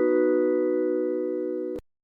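Chord of an electronic chime jingle ringing on and slowly fading, then cut off abruptly with a click near the end.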